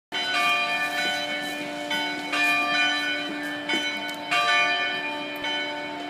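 Church bells pealing: several bells struck one after another, about one or two strikes a second, their tones ringing on and overlapping.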